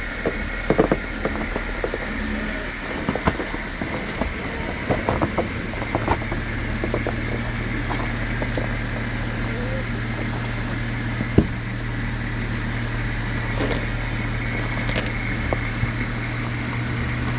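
Jeep Wrangler JKU Rubicon crawling down a rock obstacle: the engine runs low and steady, its note stepping up about six seconds in, under scattered knocks, clicks and creaks from the tyres, suspension and body working over rock. A single sharp knock comes about eleven seconds in.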